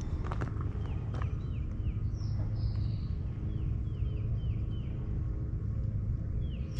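Songbirds calling, a run of short falling chirps about every half second with one longer, higher note in between, over a steady low outdoor rumble. A few faint clicks come in the first second or so.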